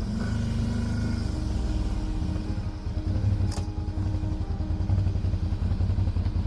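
TGB Blade 1000 ATV's V-twin engine running under way, a low pulsing note that grows a little louder in the second half. There is a single sharp click a little past halfway.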